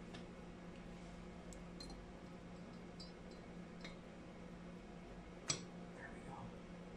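A few light clicks and clinks of small metal parts being handled on a workbench, the sharpest about five and a half seconds in, over a faint steady hum.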